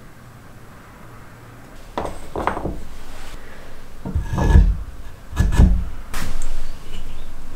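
Plywood parts being handled and fitted together: wood scraping and rubbing against wood, with two heavier knocks about halfway through.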